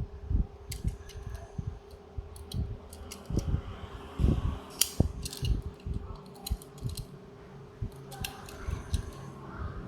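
Scattered small clicks, taps and light knocks of die-cast toy cars and their packaging being handled, over a steady low hum.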